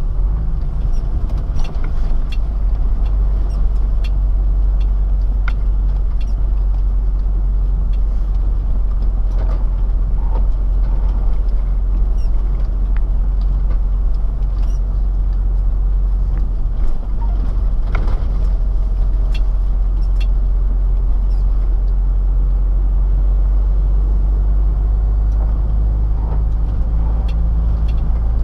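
Inside the cab of a MAN TGA truck driving on a wet road: a steady low engine drone with tyre and road noise. Scattered light clicks and knocks come and go throughout.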